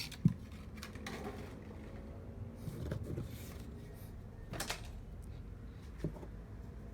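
Small plastic toy figures and accessory pieces being handled, with a few light clicks and knocks as they are picked up and set down.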